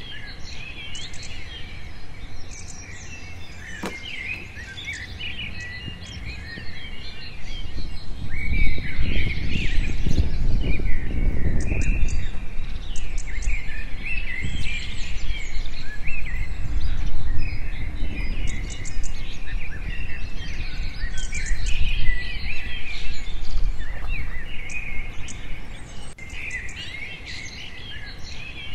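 Many birds chirping and calling over one another. A low rumbling noise rises about a third of the way in and carries on under them.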